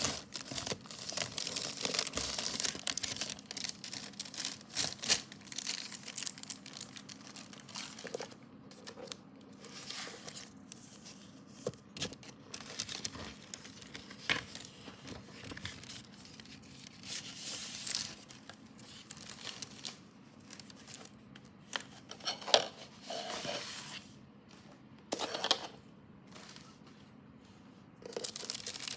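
Hands handling a vinyl album's paper and plastic packaging: rustling and crinkling, with stretches that sound like tearing. Busy, continuous handling for the first several seconds, then scattered rustles and small clicks with short pauses between them.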